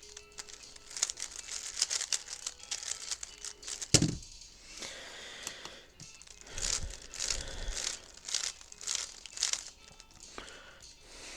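3x3 speed cube being turned rapidly: a dense run of plastic clicks and clacks as the layers snap round, with one heavy thump about four seconds in.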